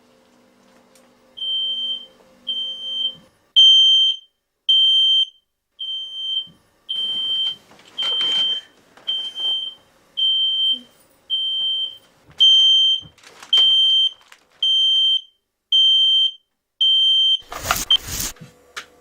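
Smoke alarm sounding: a loud, high-pitched electronic beep of about half a second, repeating roughly once a second. Near the end a loud sharp noise is heard and the beeping stops.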